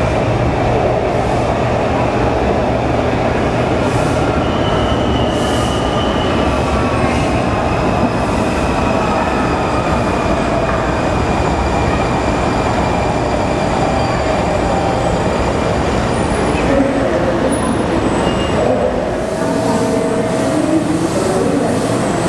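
WMATA Red Line subway train pulling into the station and braking: a steady rumble of steel wheels on rail with thin wheel squeals over it. The deep rumble dies away near the end as the train comes to a stop.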